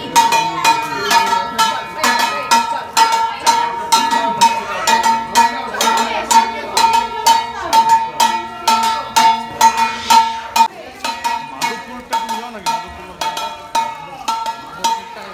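A hand-held bell-metal gong plate (kansar) being struck steadily with a stick, about three strokes a second, each stroke ringing on.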